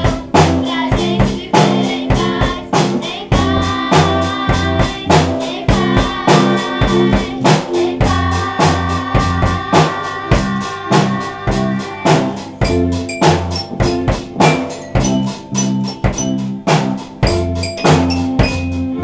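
School band playing an instrumental passage: a steady drum-kit beat with bass drum and rimshots over a stepping bass line, with long held melodic notes through the middle.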